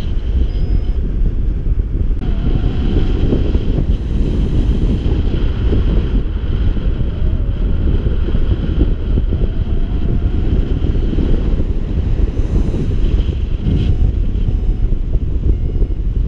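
Wind rushing and buffeting against the microphone in paragliding flight, a loud, steady, low rumble with no letup.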